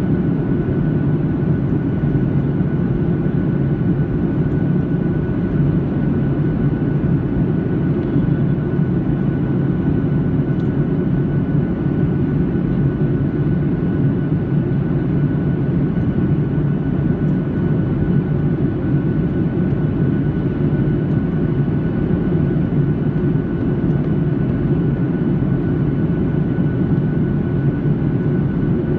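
Inside the cabin of a SpiceJet Boeing 737 in flight: the steady low rush of jet engines and airflow, with a thin steady whine above it.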